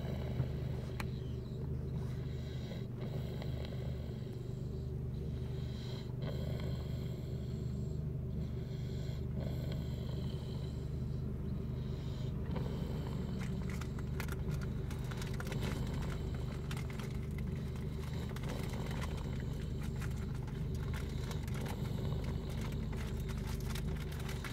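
A person snoring inside a car, with a steady low hum running underneath.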